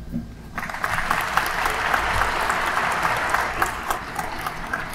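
Audience applauding, starting about half a second in and thinning out near the end.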